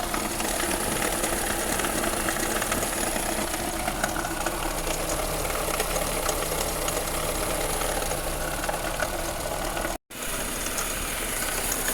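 Jeep Renegade's E.torQ engine running steadily at idle, with the noise of its worn water pump: play in the water-pump pulley makes the noise. The sound cuts out for an instant about ten seconds in.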